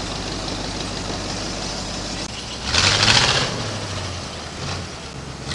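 Log loader's engine running steadily, with a brief louder surge and hiss about three seconds in.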